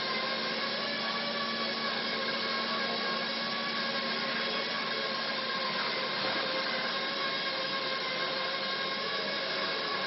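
Atlanta Stretch Sfera self-propelled stretch-wrapping robot with its film carriage, driving around a pallet and wrapping it in stretch film: a steady electric whine with several held tones over a hiss.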